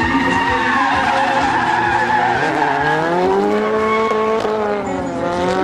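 Two drift cars, one a BMW 3 Series, sliding with their tyres skidding and engines running at high revs. The engine pitch climbs about halfway through, dips near the end and climbs again as the throttle is worked.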